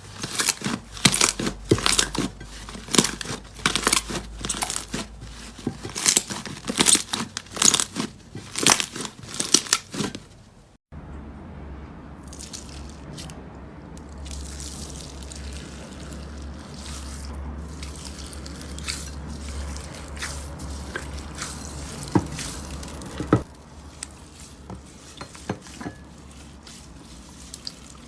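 Slime being squeezed and pressed by hand: dense, crisp crackling and popping for the first ten seconds or so, then after a sudden cut a quieter stretch of softer squishing with occasional pops over a low hum.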